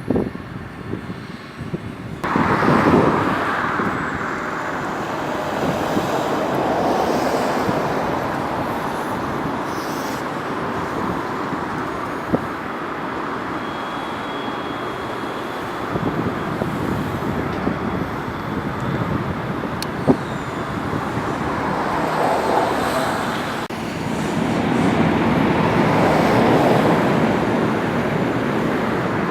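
Road traffic passing on a busy road: a steady rush of tyres and engines that comes in suddenly about two seconds in, swells and fades as vehicles go by, and builds again near the end, with a faint high whine in the middle.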